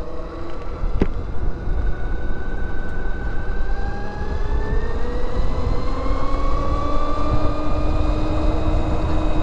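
NIU XQi3 electric motorcycle's motor whining as it accelerates in eco mode, several tones rising slowly in pitch with speed. Wind rumble on the microphone runs underneath, with a single click about a second in.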